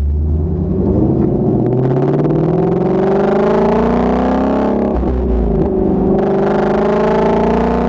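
2016 Shelby GT350's 5.2-litre flat-plane-crank V8 exhaust under acceleration, the engine note climbing steadily in pitch. About five seconds in it breaks and drops, then climbs again.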